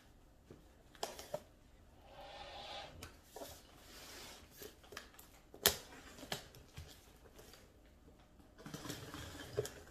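Faint scraping, rustling and tapping of a cardboard shipping box being opened by hand, with a sharper click a little past halfway.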